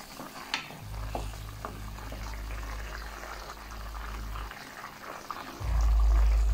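Thick tomato-based chicken stew simmering in a pan and being stirred with a wooden spoon: soft bubbling with scattered light clicks. A low rumble runs under most of it and gets loud near the end.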